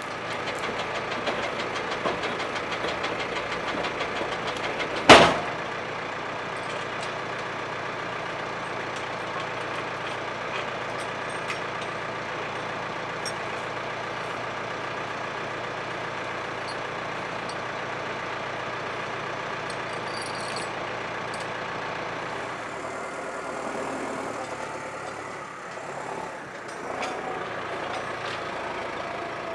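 Tractor engine running steadily while driving a 3-ton Estre log winch that drags a log in on its cable, with one loud sharp clank about five seconds in. The low part of the engine sound drops away a little past twenty seconds.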